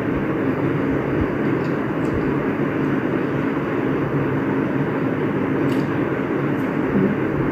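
Steady machine-like background hum and hiss, even throughout, with a few faint small clicks.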